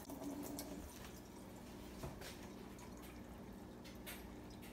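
Faint wet stirring of thick, creamy chicken pot pie filling with a spoon in a stainless steel pot, with a few soft clicks of the spoon about two and four seconds in.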